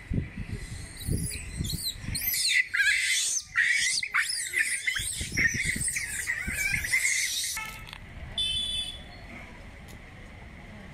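Loud, rapid high chirping and squealing animal calls, fast warbling glides lasting about six seconds, over low thumps on the microphone. A shorter buzzy call follows near the end, above a faint steady high tone.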